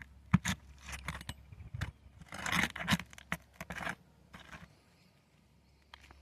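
A hand tool scraping and clicking against asphalt roof shingles as nails are worked loose and pried out, in irregular bursts that die away near the end.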